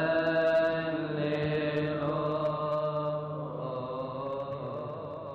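Male voice chanting a Coptic Kiahk praise hymn, holding a long drawn-out melismatic note that slowly fades away toward the end.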